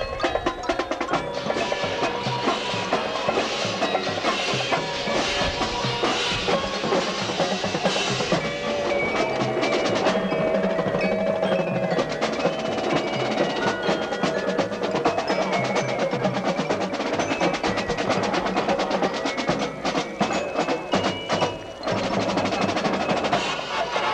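Drum and bugle corps percussion section playing: rapid snare and tenor drum strokes with ringing mallet-percussion notes, bells and xylophone, over them.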